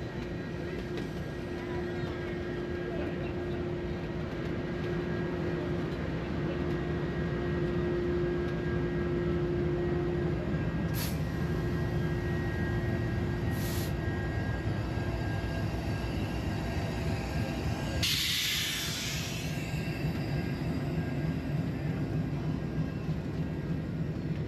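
Union Pacific passenger cars rolling slowly past on the track, a steady rumble of wheels on rail. Two brief high squeaks come around the middle, and a short hiss a few seconds later.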